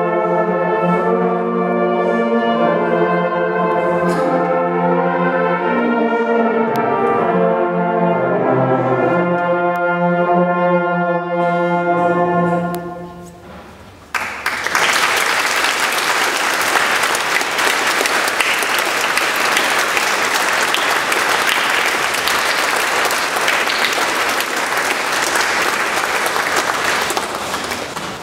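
A brass ensemble plays the last bars of a piece, its final notes dying away about halfway through. Then the audience applauds steadily for about thirteen seconds, the applause fading near the end.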